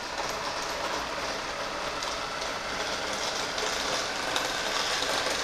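Electric main drive motor of a scale RC Gato-class submarine running at low throttle, turning its propeller shaft and propeller out of the water. It makes a steady, even mechanical running noise.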